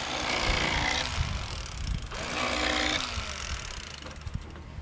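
Cordless electric fillet knife buzzing as its reciprocating blades slice a largemouth bass fillet, in two bursts of about two seconds and then just under one second, its pitch wavering as it cuts.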